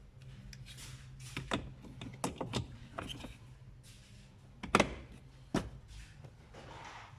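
Clicks and knocks from the Suzuki Swift's cabin filter housing and glovebox trim being handled, with the loudest snap a little before five seconds in and another about half a second later, over a faint steady low hum.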